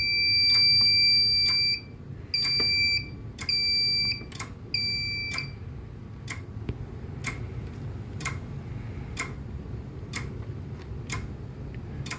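A fire alarm sounder on a Siemens XLS fire alarm system, set off by an activated smoke detector, sounds a steady high tone. It then breaks into three short beeps and stops as the panel is reset. A sharp click repeats about once a second.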